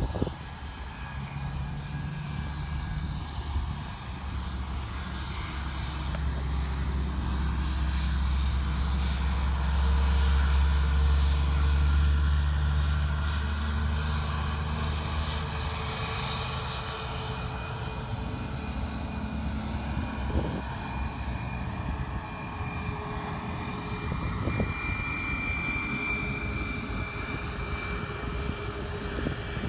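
A jet airliner's engines at taxi power as it backtracks along the runway. A steady low rumble is loudest about a third of the way in, with a thin engine whine that slowly rises in pitch in the second half.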